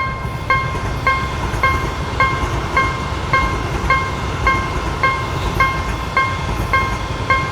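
Japanese level-crossing warning bell ringing the steady 'kan-kan', about two strikes a second, while a train rumbles past.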